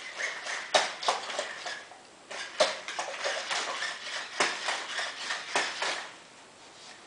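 Sony Aibo ERS-210 robot dog walking, its plastic feet and leg joints clicking and clattering on the floor in quick irregular steps, with a short pause about two seconds in. It stops about six seconds in.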